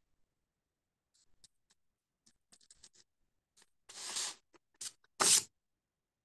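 Light clicks and scrapes of calligraphy tools, a knurled-handle knife among them, being handled on paper. Two louder scraping rustles come about four and five seconds in.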